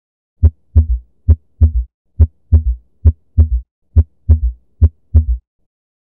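Recorded heart sounds of an S3 ventricular gallop: a three-beat rhythm at about 70 beats a minute, each first heart sound followed by the second heart sound with a quieter third sound close behind it. The extra early-diastolic sound comes from a large volume of blood rushing into the ventricle and tensing the chordae.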